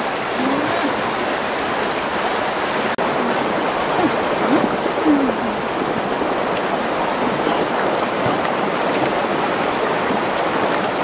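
River water running over rocks, a steady rushing noise.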